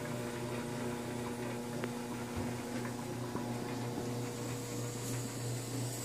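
Glass vacuum coffee pot bubbling and gurgling faintly as the last of the brewed coffee is sucked down through the filter into the lower pot and air is drawn in behind it: the end of the vacuum drawdown. A steady electrical hum is the loudest thing throughout.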